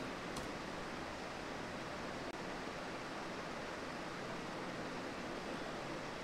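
Steady background hiss with no speech, with one faint click about half a second in.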